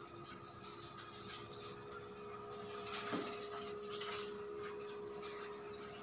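Faint room tone: a steady low hum with scattered light clicks and clatter, one slightly louder about three seconds in.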